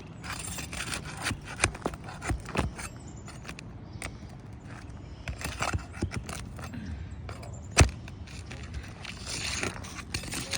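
Scraping and handling of brittle asphalt roof shingles during a repair, with scattered small clicks and knocks and one sharp knock about eight seconds in.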